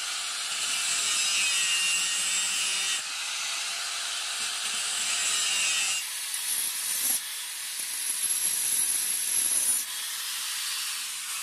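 Steady abrasive rasp of a steel blade being worked down at a bench vise, in a few stretches that change abruptly.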